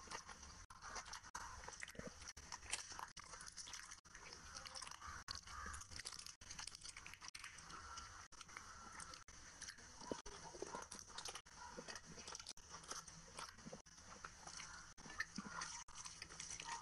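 A person chewing food close to the microphone, with crunching and many small wet mouth clicks.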